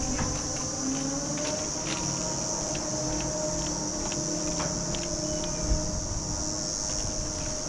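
A steady high chorus of summer insects over the low rumble and steady hum of a pair chairlift running, with scattered light clicks and one short bump a little past halfway.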